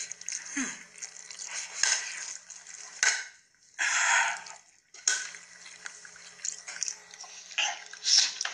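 A person eating very spicy noodles: wet slurping and chewing, with short hissing breaths drawn through pursed lips against the burn, the loudest about four seconds in, and light clinks of a fork on the plate.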